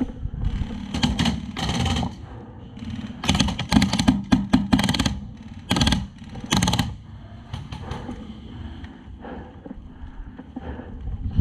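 HPA airsoft rifle with a Polarstar Jack engine firing about five rapid bursts of shots. The longest burst runs nearly two seconds, from about three seconds in, and short bursts follow near six and seven seconds in.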